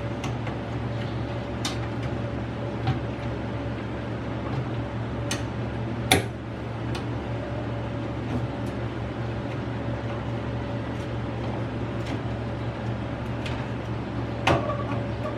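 Scattered clicks and knocks of hard computer parts being handled and fitted during desktop PC reassembly, the loudest about six seconds in and another near the end, over a steady low hum.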